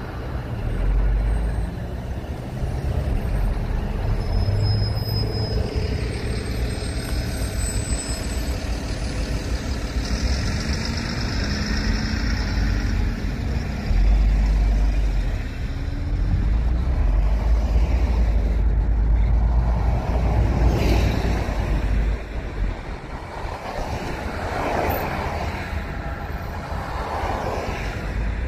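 Steady road-vehicle noise: a low engine rumble with tyre and road roar, growing louder about halfway through.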